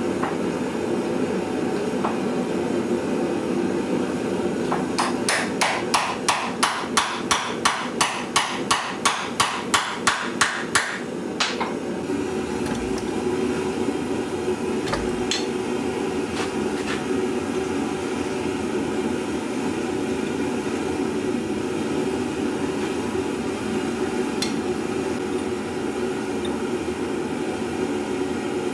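Hand hammer striking steel about fifteen times in a quick, even rhythm, about two and a half blows a second, starting about five seconds in: driving a touch-mark punch into a forged axe head. A steady hum runs underneath.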